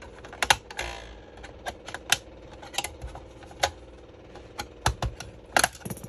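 Irregular sharp plastic clicks and snaps, with a brief scrape about a second in, as a thin pry tool levers the plastic port panel off the casing of a ZTE MC801A 5G router.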